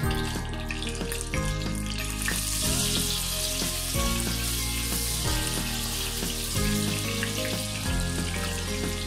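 Pieces of spice-marinated snakehead (gojar) fish frying in hot oil in a pan, a steady sizzle that grows louder about two seconds in as the fish goes into the oil. Background music plays underneath.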